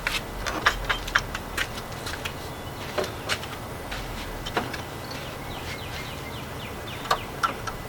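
Scattered small clicks and light metallic taps, irregular and a fraction of a second apart, as the metal gate hook and eye-hook hardware are handled and squeezed.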